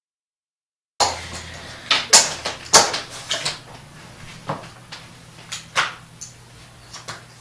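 Poker chips clicking and clacking as they are handled and stacked: a run of sharp, irregular clicks starting about a second in, over a low steady hum.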